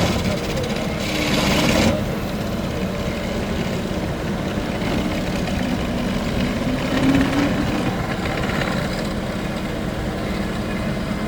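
Engine of a hydraulic rock-drilling rig running steadily, with a louder, harsher noise that cuts off about two seconds in and a short rising tone near the middle.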